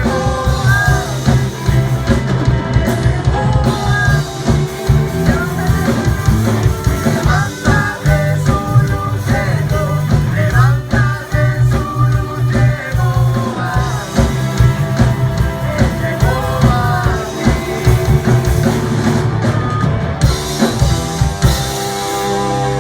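A live band plays with a singer: a lead vocal over drum kit, bass and guitar, at a loud, even level. In the last second or two the drums drop out and the band holds long sustained chords.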